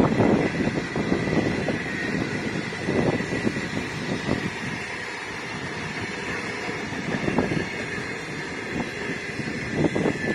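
Long passenger train's carriages rolling past on the rails, growing quieter over the first few seconds as the last cars go by, with a thin steady high-pitched ring. Wind buffets the microphone, more gusty near the end.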